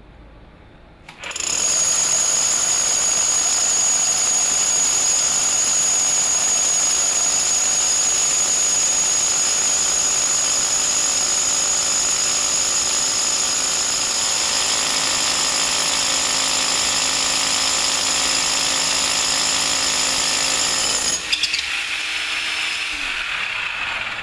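SDS Max rotary hammer drill with a cross-head masonry bit boring into brick: it starts about a second in and runs loud and steady with a high whine. Near the end the sound changes and drops somewhat in level.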